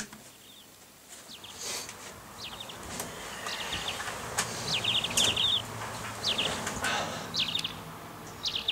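Small songbirds chirping: short, rapid, high trills repeated every second or so, over a faint steady low hum.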